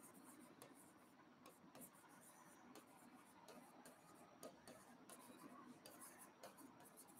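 Faint, irregular taps and scratches of a stylus writing on the glass of an interactive display screen.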